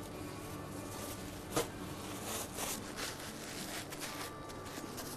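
Quiet kitchen room tone with a steady low hum and a few light knocks and rustles of things being picked up and handled at a counter. The sharpest knock comes about a second and a half in.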